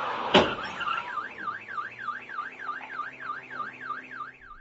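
A single sharp bang of a car being struck, then a car alarm immediately sounding, its siren warbling rapidly up and down about four times a second until it cuts off near the end.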